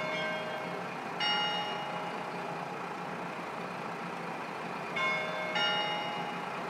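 Bell-like chime notes struck one at a time at uneven intervals, each at a different pitch and ringing on briefly, over a steady rushing background.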